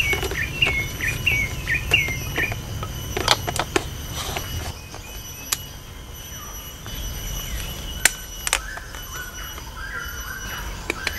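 Grey heron chicks' begging calls: a run of short repeated calls, about three a second, then a second, lower run near the end. A few sharp clicks fall between and after them.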